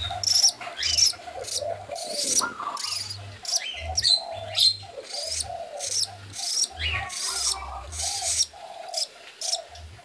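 Nestling budgerigar chirping in short, rapidly repeated calls, two or three a second, some sliding quickly in pitch.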